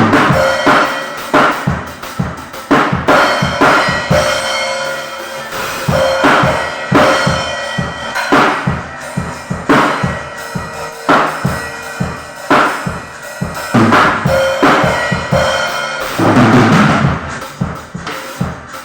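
Music with a drum kit playing a steady beat, struck hits recurring evenly, along with held pitched notes from other instruments.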